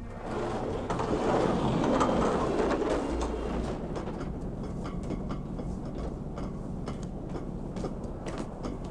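A loud mechanical rumble for the first three seconds, then a steady low hum under a run of footsteps on metal stairs, heard as irregular sharp taps.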